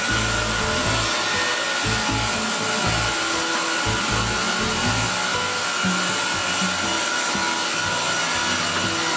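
Wood planing machine cutting a squared timber beam: a steady rushing hiss with a constant high whine from the cutters and dust extraction. Background music with a bass line runs underneath.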